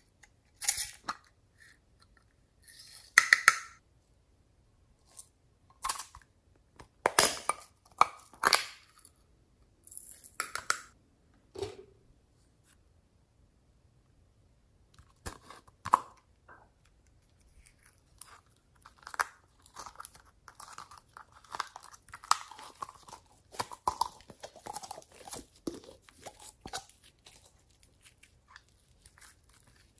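Small plastic slime containers being handled, with sharp plastic clicks and crackles in the first half. Then a denser run of soft crackling and squishing as pink slime is squeezed by hand.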